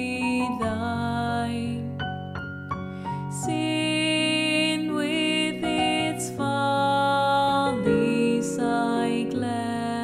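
A slow, gentle hymn sung by a woman's voice with vibrato over sustained piano accompaniment.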